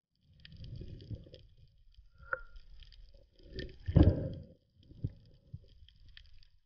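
Water sloshing and muffled knocks, heard underwater through a camera housing, as a freshly speared fish is handled on the spear shaft. There is a short ringing knock a little after two seconds in, and the loudest thump about four seconds in.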